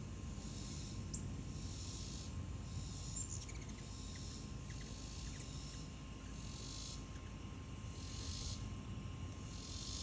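Insect chorus buzzing high and pulsing, swelling and fading about every second and a half, with a few short high chirps in the first half.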